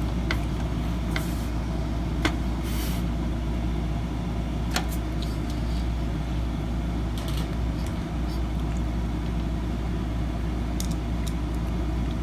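A steady low hum of background machinery, with scattered small clicks and taps of computer parts being handled during reassembly.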